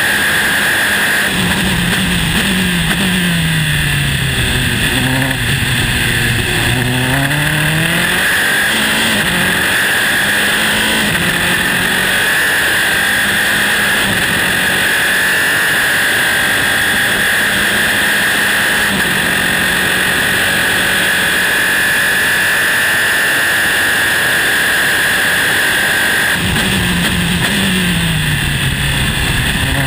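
Volkswagen four-cylinder Formula 3 engine in a Dallara single-seater, heard onboard at racing speed. Early on it drops through the gears under braking with short throttle blips. It then accelerates through a series of upshifts and holds at high revs, and near the end it brakes and downshifts again.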